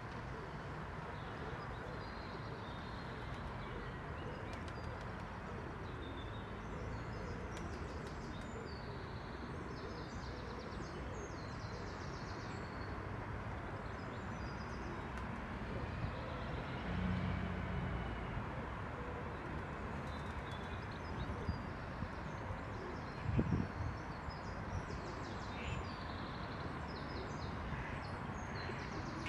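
Steady outdoor background noise with faint, high bird chirps now and then, and a brief thump about two-thirds of the way through.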